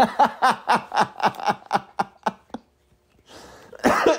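A man laughing: a run of short chuckles, about four a second, then a pause, a breath in and a long falling voiced exhale near the end.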